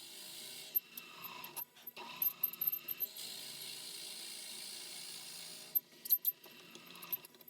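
A drill bit on the lathe cutting into the spinning mandrel blank: a steady high hiss in two long stretches, with bursts of sharp clinks and ticks in between and near the end.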